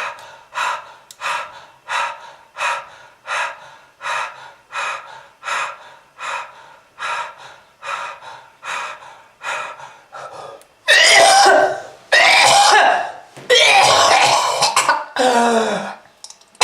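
A person with a smoker's cough: short, rhythmic coughs a little under two a second for about ten seconds, then much louder, longer coughing fits with a voiced pitch that falls away at the end of the last one.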